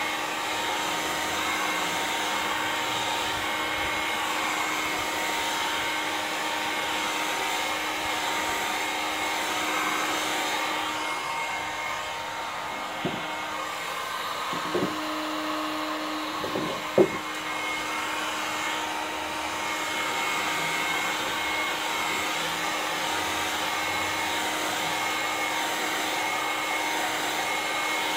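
Gamma electric heat gun blowing steadily, heating PVC to soften it for bending. A few short knocks near the middle, the loudest about 17 seconds in.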